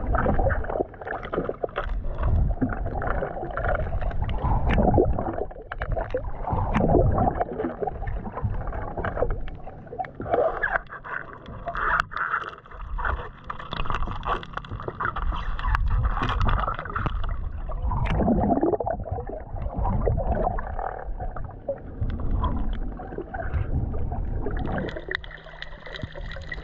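Underwater sound through a GoPro's waterproof housing as a diver swims down: muffled, churning water movement with many scattered clicks and knocks. Near the end it gives way to a quieter, steady hum.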